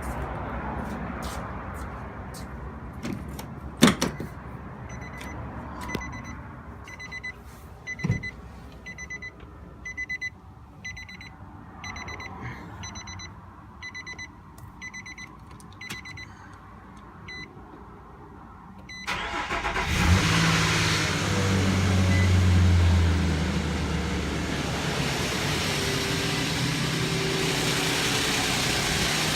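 A sharp thud about four seconds in, then a dashboard warning chime beeping about once a second for some twelve seconds. About twenty seconds in, the Nissan Frontier's engine cranks, starts and idles, with a knock that the owner puts down to worn timing chain guides letting the chain hit the tensioner, metal on metal.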